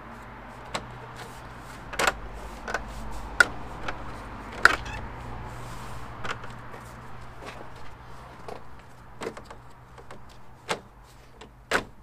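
Plastic GP3 front grille clicking and knocking against the Mini's front bumper as it is handled and lined up on its clips: a string of irregular sharp clicks and taps, a few louder knocks about three to five seconds in and one near the end.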